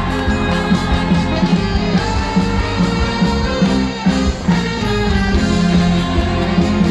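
Instrumental break of a trot song played loud over a concert sound system, with a steady beat and sustained melody lines between sung verses.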